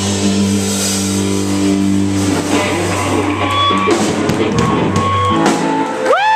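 Live rock band of electric guitars, bass and drums holding a final chord that rings out under cymbal wash, closing the song. The low bass note cuts off about five seconds in, and near the end a single note slides up and back down.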